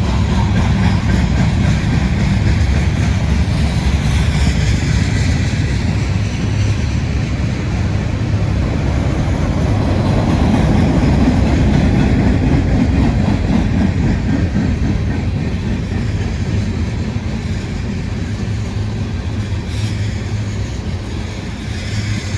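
CSX freight train passing: a loud, steady low rumble of the rolling train, swelling a little about halfway through.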